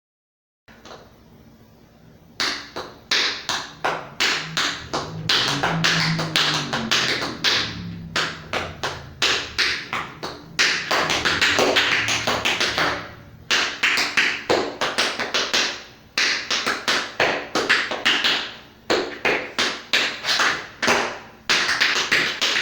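Tap shoes' metal taps striking a hard floor in quick rhythmic runs of steps, phrased in groups with short pauses between them. The tapping starts after about two seconds of faint room tone.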